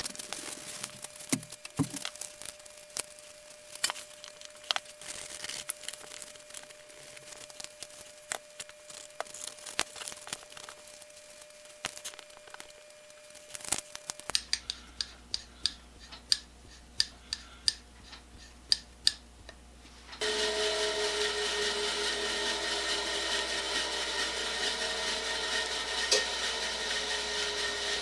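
Hand work with tools: scattered clicks and taps, then a run of evenly spaced taps. About twenty seconds in, a steady whirring machine noise starts and keeps going.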